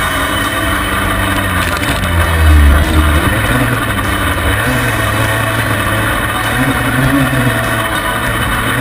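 Yamaha Banshee quad's big-bore two-stroke twin engine running under riding, its revs rising and falling as the throttle is worked, picked up close by a footpeg-mounted camera. A heavy low rumble about two and a half seconds in is the loudest moment.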